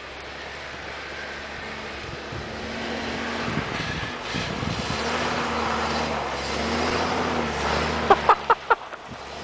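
Pickup truck engine running as the truck drives through snow, its note rising and falling and growing louder as it comes closer. Near the end come four quick sharp sounds.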